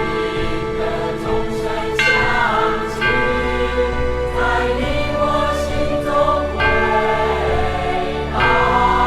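A choral song with sustained, held notes sung by a choir over instrumental accompaniment.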